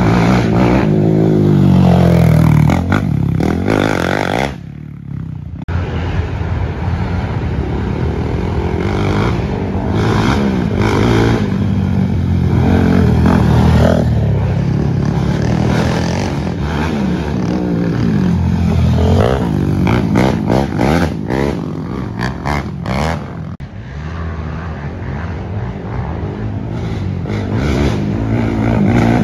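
Racing quads (ATVs) revving hard on a dirt trail, engine pitch rising and falling over and over with throttle and gear changes. The sound drops away briefly about five seconds in.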